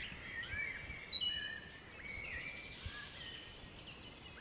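Songbirds singing in woodland: overlapping whistled notes at different pitches, some sliding, mixed with short chirps.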